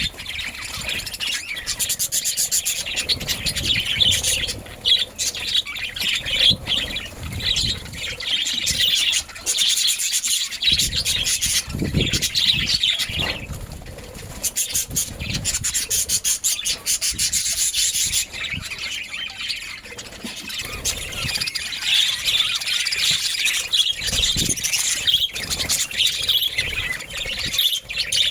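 Budgerigars chattering and warbling nonstop, a dense, scratchy run of fast chirps from several birds, with irregular low rumbling noise underneath.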